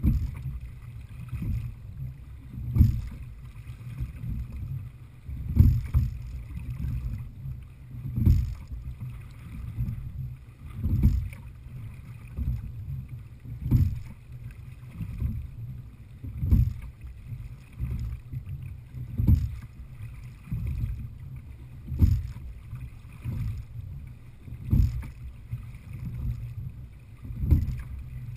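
Sculling stroke in a Heritage 18 open-water rowing boat: a knock and splash of the oars at each stroke, evenly about every 2.7 s (some 22 strokes a minute), over a steady low rumble of water and wind.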